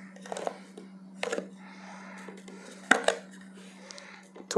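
Plastic container of bird hand-feeding formula being opened and handled: a few sharp clicks and clacks spaced about a second or more apart, over a steady low hum.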